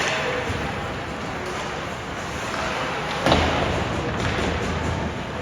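Ice hockey play in a rink: steady arena noise with one sharp hit about three seconds in.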